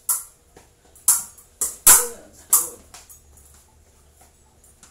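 Steel épée blades striking each other: five sharp metallic clinks in about three seconds, the loudest about two seconds in, with a dull thud under it.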